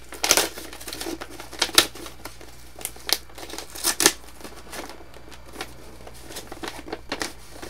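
A parcel's wrapping crinkling and rustling as it is opened by hand, with irregular sharp crackles, the loudest about a third of a second in, near two seconds and near four seconds.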